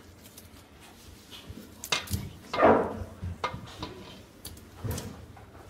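Scattered knocks and clicks of kitchen handling, with a louder brief sound about two and a half seconds in.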